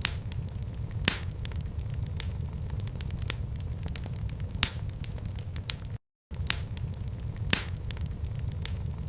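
Wood fire crackling in a fireplace: a steady low rumble of flames with constant small ticks and three sharp pops. About six seconds in, the sound drops out completely for a moment.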